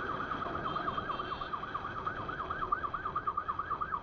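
Police siren sounding in a fast yelp, its tone sweeping rapidly up and down about six or seven times a second, over low vehicle rumble.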